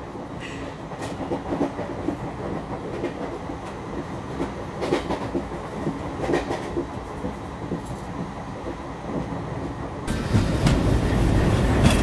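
Passenger train running along the rails, heard from inside the carriage: a steady rumble with wheel clatter. About ten seconds in it grows louder and deeper.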